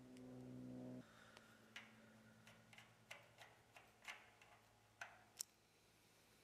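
Faint, irregular clicks and ticks of a throttle cable and its small metal fittings being handled at a carburetor, about a dozen in all, over a low steady hum that drops in level about a second in.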